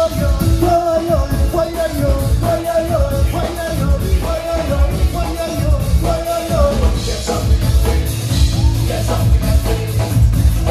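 Live band playing upbeat rock-style music, a singer carrying the melody over a steady drum beat and bass.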